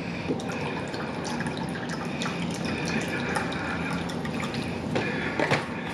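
Rum poured from a bottle into a cup in one long, steady pour.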